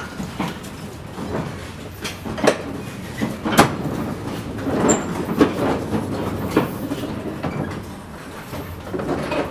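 A 7½-inch-gauge live steam locomotive, fire out and boiler at zero pressure, being moved on its track, giving irregular metallic clanks and knocks of wheels on rail. The loudest knock comes about three and a half seconds in.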